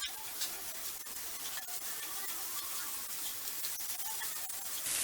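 Chopped chapati pieces frying in oil and onion-tomato masala in a pan: a steady sizzle with scattered light clicks.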